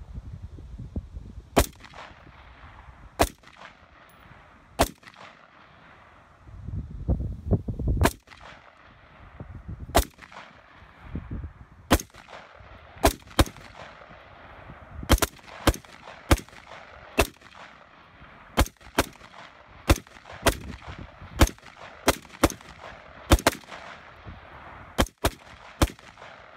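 Colt 6920 AR-15 rifle in 5.56 firing single semi-automatic shots, about thirty sharp cracks. The shots come one to two seconds apart at first and quicken to about two a second in the second half. The rifle keeps cycling without a stoppage.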